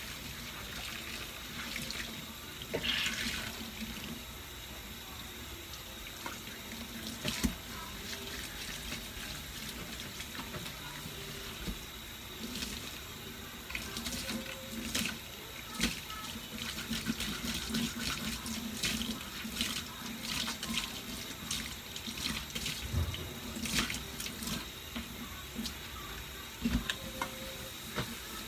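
Kitchen faucet running steadily into a stainless steel sink while dishes are hand-washed, with scattered clinks and knocks of dishware and utensils.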